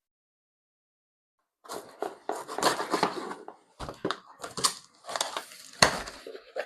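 A cardboard shipping box being opened by hand: crackling, rustling cardboard and packaging with sharp clicks and a couple of dull thuds. It starts about two seconds in, after dead silence.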